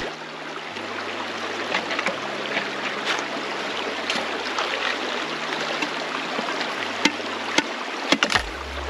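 Shallow river running over rocks, with a hand-operated suction pump (a Keene Engineering sniping suction gun) drawing up and discharging water and gravel into a pan. Scattered sharp clicks of stones, with a short cluster near the end.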